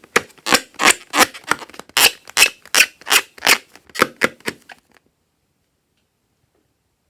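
Slime being worked by hand close to the microphone: a quick, even run of wet clicking squishes, about three a second, stopping about five seconds in.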